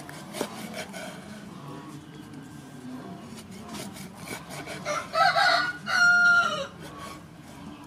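A rooster crows loudly about five seconds in: a rough first part, then a held note that falls away at the end. Under it, a kitchen knife cuts through stingray flesh with soft taps on a wooden chopping board.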